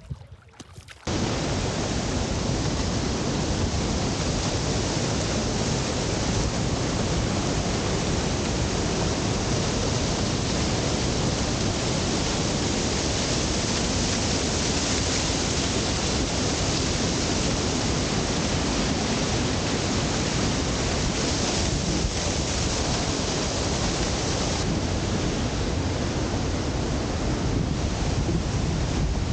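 Steady, unbroken rush of a waterfall's falling water. It starts abruptly about a second in and keeps an even level throughout.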